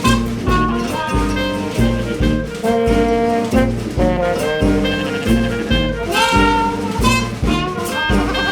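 Upbeat jazzy background music with brass and a steady bouncing bass beat.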